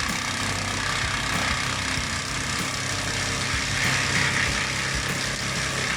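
Wood chipper running, its engine held at a steady speed under a constant rushing noise.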